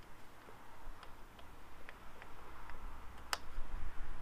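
A 6mm Allen key turning a steel bolt by hand: a scatter of light metallic clicks and ticks, with one sharper click just over three seconds in.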